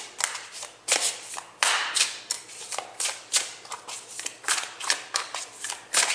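Tarot cards being shuffled by hand, packets slid and slapped from hand to hand: quick, irregular card slaps and flutters, about three a second.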